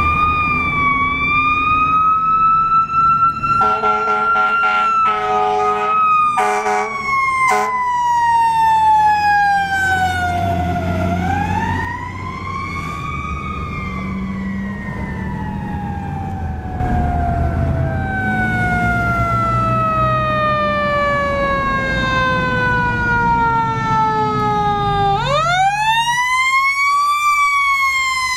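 Fire engine responding with its siren wailing in long, slow sweeps that wind up and then fall away, over the truck's engine rumble. Several short horn blasts sound around four to eight seconds in.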